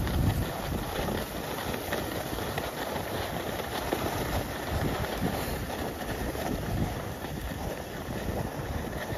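Skis sliding and scraping over groomed piste snow at speed, a steady rushing noise with a rumbling low end, mixed with wind buffeting the microphone.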